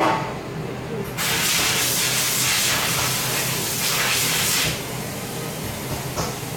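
A short metallic clank at the very start, then a loud hiss of pressurised air or spray. The hiss starts about a second in, swells and dips a few times over about three and a half seconds, and cuts off. A small knock comes near the end.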